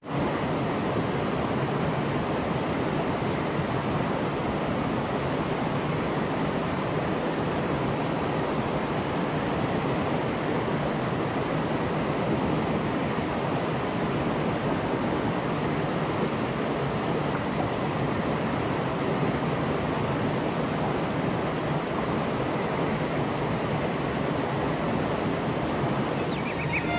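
Steady rushing of running water, an even roar with no change in level.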